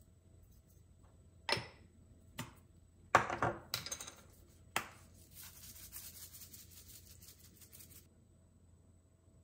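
Household handling sounds: a few sharp knocks and a short clatter, then about three seconds of steady rasping noise that stops suddenly.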